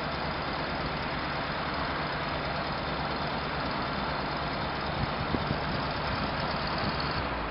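Soviet-era bucket truck's engine idling steadily, with a couple of short knocks about five seconds in.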